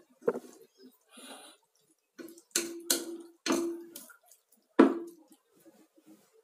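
Spatula knocking and scraping against a stainless-steel cooking pot while shredded chicken is stirred and scooped: about five sharp knocks, each leaving the pot ringing briefly, the loudest a little before the end.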